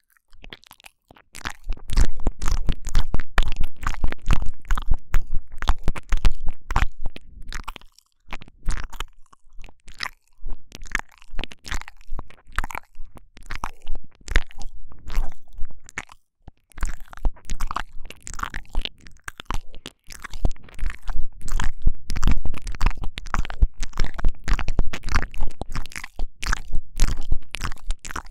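Intense ASMR 'ear eating' mouth sounds made right against a binaural microphone: rapid, dense tongue and lip clicks with low thumps. They break off briefly a few times.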